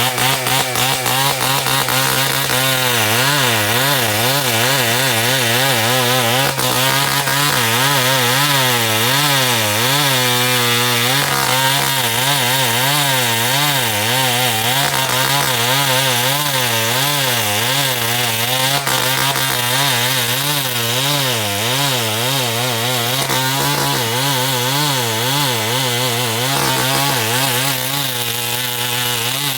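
Two-stroke chainsaw running at high revs while cutting timber. Its pitch wavers up and down as the chain takes and sheds load in the cut.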